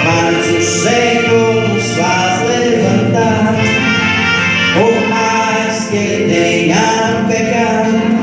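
Gospel hymn music with a sung melody, several notes sliding up into pitch.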